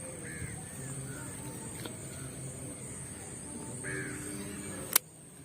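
Crows cawing, a few spaced calls over a steady outdoor background. A single sharp click near the end, after which the background drops quieter.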